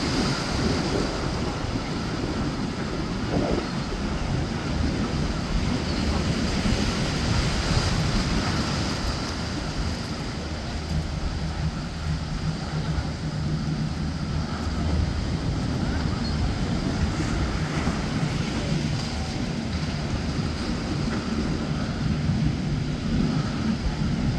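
Motorboat engines running through rough inlet water, a low steady drone that grows plainer in the second half. Surf and wind buffeting the microphone run under it.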